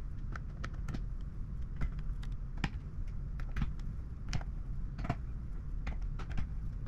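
Irregular light clicks and taps of small hard parts and tools being handled while a graphics card is taken apart and cleaned, a few a second and of uneven strength, over a steady low hum.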